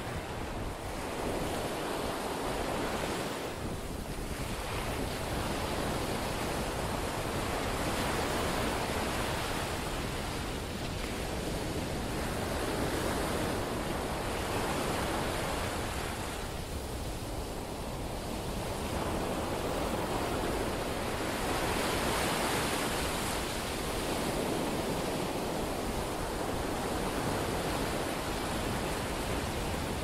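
Strong surf breaking on a sandy beach, mixed with wind rushing over the microphone; the noise swells and eases every few seconds.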